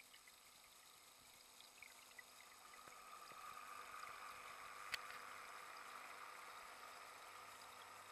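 Faint, muffled rush of circulating water heard from inside a nano reef aquarium, swelling a few seconds in and slowly easing off, with a single sharp click about five seconds in.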